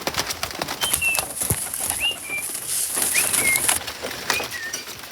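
Pigeons flapping their wings and scuffling in a loft as dropper birds are put in, with clicks and rustles and four short high squeaks about a second apart.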